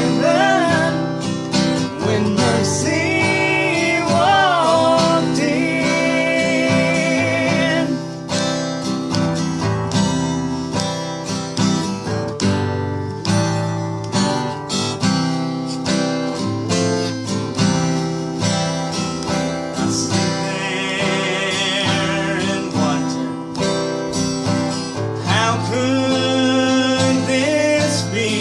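Acoustic guitar playing a country gospel song, with long, wavering held melody notes over the chords several times.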